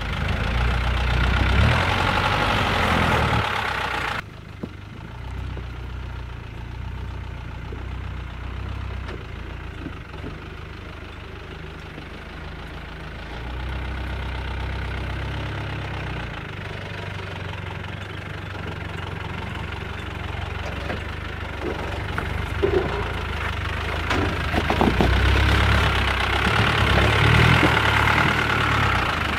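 Land Rover 110 Defender engine running at low revs as it crawls over rutted off-road ground. The sound drops away abruptly about four seconds in, then grows louder near the end as the truck climbs towards the listener, with a few short knocks along the way.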